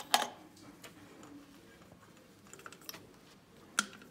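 A few light clicks and knocks as gloved hands handle the engine's plastic ignition coil cover and the compression tester fittings. A louder clack comes just after the start, a few faint ticks follow, and a sharp click comes near the end.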